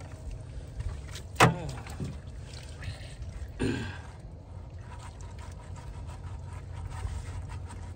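A cast net full of hassar (hoplo catfish) being handled and emptied in a jon boat, with a sharp knock about one and a half seconds in and a smaller one a couple of seconds later, over a steady low rumble.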